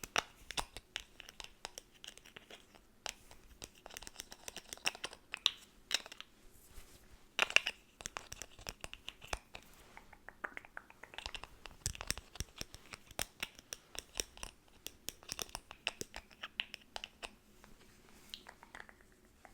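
Close-miked handling of product packaging: irregular crinkling, scratching and tearing noises mixed with quick tapping clicks.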